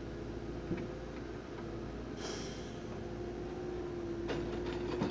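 Engine of a Kershaw tie-handling crane running with a steady hum while its grapple works. A short hiss comes about two seconds in, and a couple of sharp knocks follow near the end.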